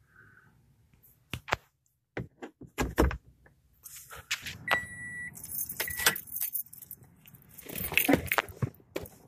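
Clicks and knocks in a car cabin, then car keys jangling with a short electronic chime heard twice, then a louder clatter as the car door is opened.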